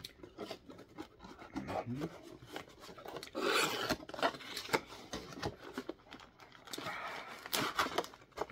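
Cardboard figure box being handled and opened: cardboard flaps and the inner cardboard tray scraping and rubbing as the tray slides out of the box, with short taps in between. There are longer rubs about three and a half seconds in and again near the end.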